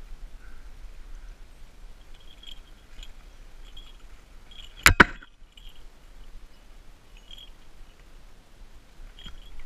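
A sharp double knock close to the microphone about five seconds in, two hits a split second apart. Around it are faint rustling and scattered faint, short high chirps.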